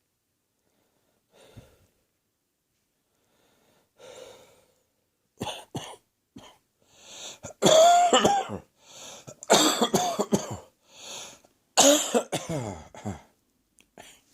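A person coughing: a few faint throat sounds, then from about five seconds in repeated harsh coughing fits, the loudest in the second half. It is a chesty cough, which the cougher says is heading for the chest.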